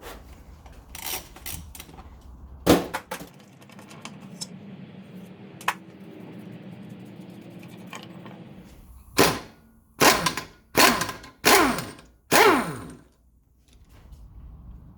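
Workshop tools at work on a motorcycle engine's crankcases: a few sharp clicks and knocks, a stretch of steadier noise, then five loud short bursts in quick succession, each falling quickly in pitch.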